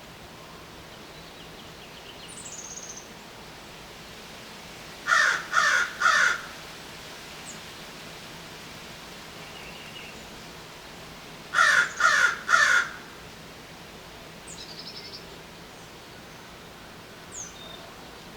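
American crow cawing: two runs of three caws, about six seconds apart, with a few faint high chirps of small birds in between.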